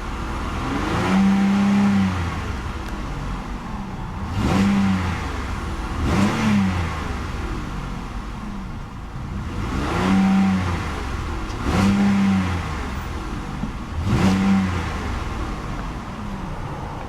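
2008 Pontiac G6 GT's 3.5-litre V6 revved six times while parked, rising quickly each time and holding flat at a rev limiter set between 3,000 and 4,000 rpm before dropping back to idle.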